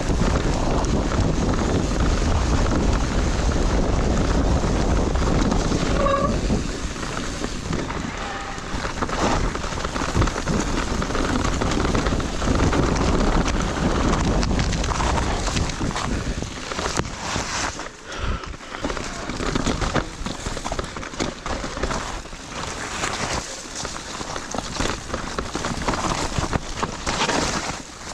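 Wind buffeting the microphone while an electric mountain bike is ridden, a steady rushing noise. From about halfway through it turns choppier, with scattered knocks and rattles.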